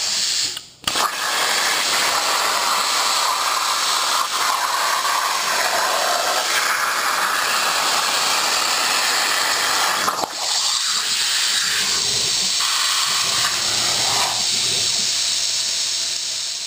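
CNC plasma cutter torch cutting 11-gauge stainless steel: a loud, steady hiss of the plasma arc and air jet. It cuts out briefly about half a second in, the arc re-strikes with a sharp crack, and the hiss dips briefly again about ten seconds in.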